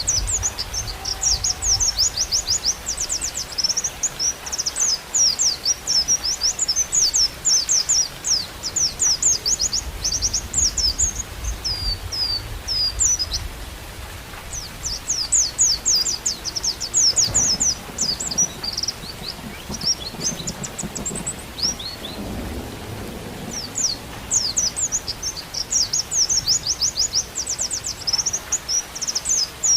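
White-eye (pleci) singing long runs of fast, very high chirps and trills, with two short pauses, over a steady hiss of rain and low rumbles.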